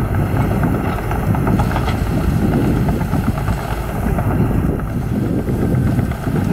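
Small Komatsu crawler dozer's diesel engine running steadily under load as it pushes soil, a constant low rumble with faint light rattling over it.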